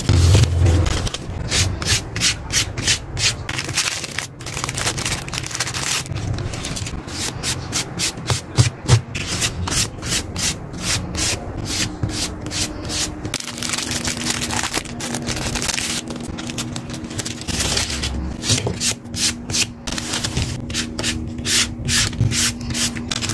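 Quick, repeated rubbing and scraping strokes on paper, coming in runs of several strokes a second with short pauses between, as in close-up sticker and journal handcraft.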